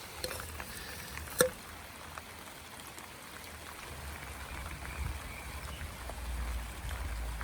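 Light rain falling and dripping, with scattered drip ticks and one sharp tap about a second and a half in. A low rumble swells toward the end.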